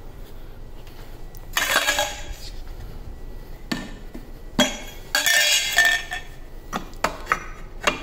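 Clinks and clatter of a vacuum cleaner's aluminium extension wands and plastic accessories being picked up and knocked together on a tiled floor, in a burst about a second and a half in and more around five seconds in. The vacuum motor is not running.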